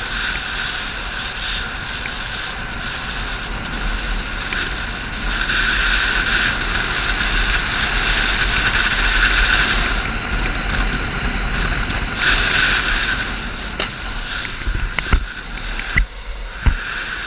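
Wind rushing over the microphone of a camera riding a fast downhill longboard run, with road roar under it, swelling and easing with speed. From about two thirds of the way in, a run of sharp knocks breaks in as the crash happens.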